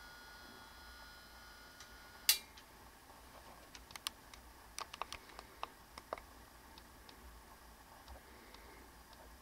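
Small clicks and ticks in a quiet room: one sharp click about two seconds in, where a faint steady high whine stops, then a scatter of smaller ticks over the next few seconds.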